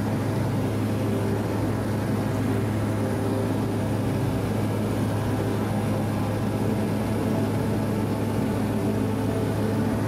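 Steady cabin drone of a de Havilland Canada DHC-6-300 Twin Otter's twin turboprop engines and propellers in cruise flight, an even, unchanging hum.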